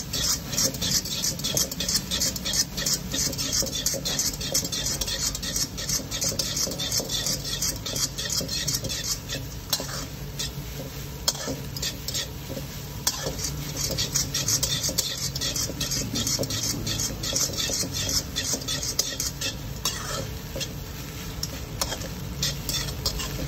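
Metal spatula scraping and clanking rapidly against a steel wok as fried rice is stir-fried and tossed, with a light sizzle underneath.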